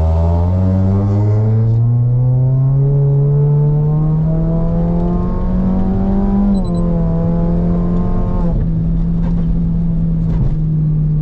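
Toyota Yaris 2NR four-cylinder engine with an aftermarket droning exhaust, pulling under acceleration. Its note climbs steadily for about six seconds, dips slightly, then holds nearly level.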